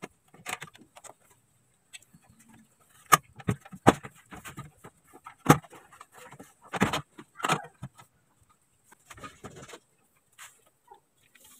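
Door trim panel of a 1991 Kia Pride being pried off the door, with its retaining clips popping loose: a run of sharp plastic snaps, the loudest about five and a half seconds in, then rougher rattles as the panel comes away.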